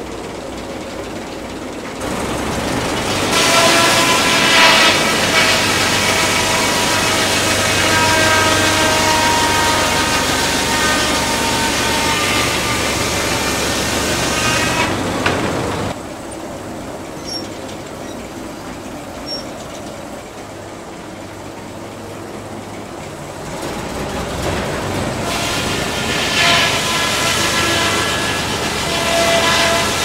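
Antique sawmill's saw cutting a log on the carriage: a long cut with a steady whine over the running machinery for about twelve seconds. The saw then runs quieter out of the cut, and a second cut begins near the end.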